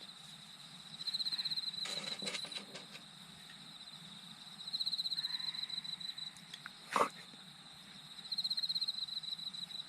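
Outdoor insect trilling at one high, steady pitch, swelling into short pulsing bursts of under a second roughly every three to four seconds. A few light knocks come about two seconds in, and a single sharper knock about seven seconds in.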